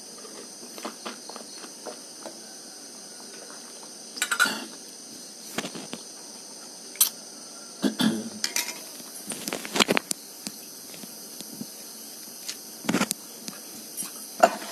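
Steady high chirring of crickets and other night insects, with scattered knocks and rustles close to the microphone.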